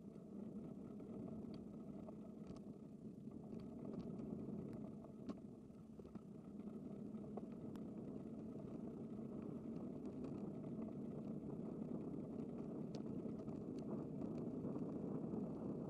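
Steady road and wind noise of a bicycle being ridden along a road, slowly getting louder over the second half, with scattered small clicks.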